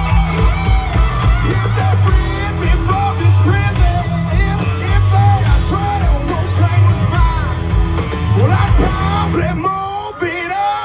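Live country-rock band playing with a singer over a steady beat, full band with guitars and pounding bass, heard through a crowd-held recording; the music briefly drops back near the end.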